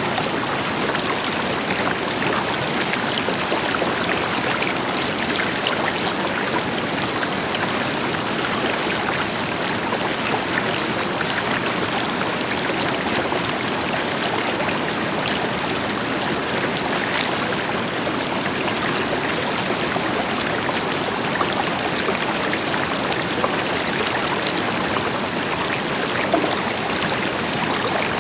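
A river flowing steadily over rocks, a constant rush of water with fine splashing and bubbling, a distant waterfall's deeper rush blended in.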